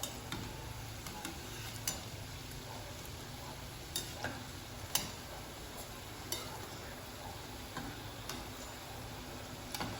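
Breaded cassava balls deep-frying in hot oil: a steady sizzle with occasional sharp pops and crackles as they brown.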